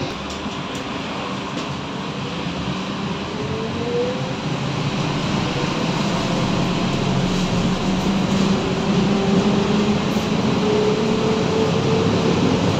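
Inside the cabin of a BKM 321 trolleybus picking up speed: the electric traction drive's whine rises in pitch twice over the steady rumble of the ride.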